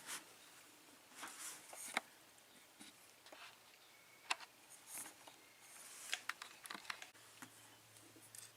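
Faint, scattered small clicks and brief rustles of lock-picking tools, a tension wrench and pick, being handled and set at a small cabinet lock held in a vise.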